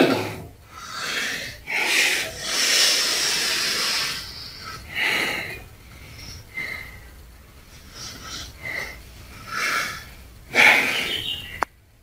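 A man breathing hard and hissing through clenched teeth, in a run of irregular breaths, the longest about two seconds. Near the end a sharp click is followed by a sudden, brief dropout to silence.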